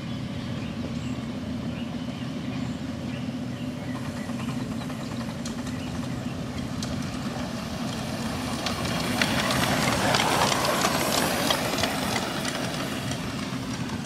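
Ridable-scale live-steam 2-8-2 Mikado locomotive, No. 611, running along the track. A hiss of steam with quick clicks grows louder as it passes close, about 9 to 12 seconds in, over a steady low hum.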